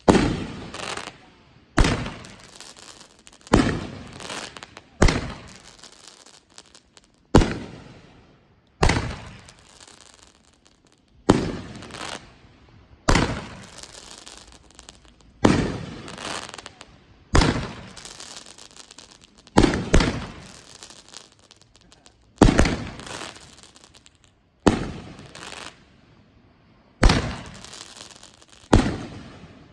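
Midnight Sunburn, a World Class 500-gram 12-shot aerial firework cake, firing its shells one after another: a string of sharp, loud booms every two seconds or so, each trailing off in an echo.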